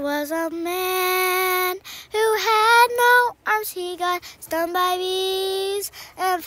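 A young girl singing a simple rhyming song that gives the steps for drawing a dog, in held notes with short breaks between phrases.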